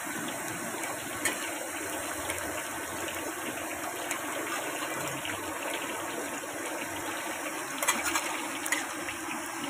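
Tahu aci (tapioca-battered tofu) deep-frying in a metal wok of hot oil: a steady sizzle, with a few light clicks about a second in and near the end as a metal skimmer works in the wok.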